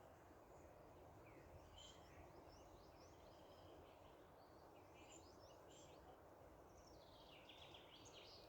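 Faint birdsong: small birds chirping and twittering in short, repeated calls over low steady background noise.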